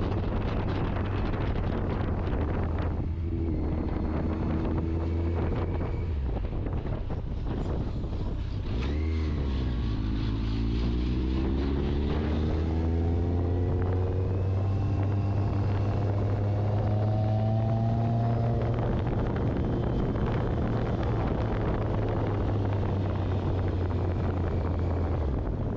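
Motorcycle engine running under way, with wind buffeting the microphone. The engine pitch climbs twice in the middle, as the bike accelerates.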